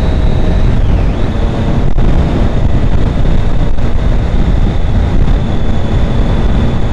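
Steady wind rush mixed with the running of a 2013 Triumph Daytona 675's three-cylinder engine at a constant road speed, picked up by a microphone in the rider's helmet.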